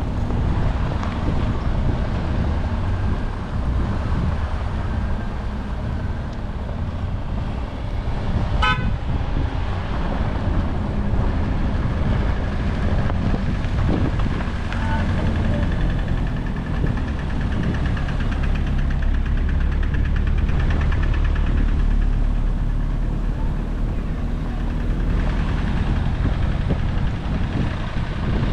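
Vehicle engines and passing road traffic running steadily, with a short car horn toot about nine seconds in.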